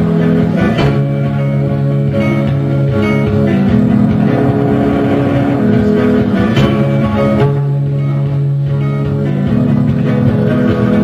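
Electric guitar played through effects pedals: long sustained chords that shift every few seconds, with a sharp strum about a second in and another a little past the middle.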